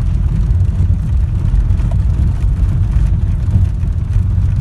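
Car driving on an unpaved dirt track, heard from inside the cabin: a steady low rumble of engine and tyres on the rough surface.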